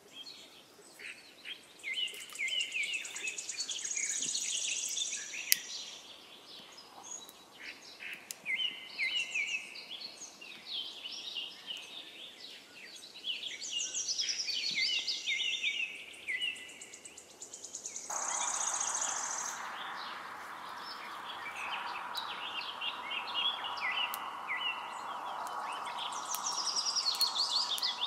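Several small songbirds chirping and singing in quick, trilled phrases. About eighteen seconds in, a steady hiss starts and runs on under the birdsong.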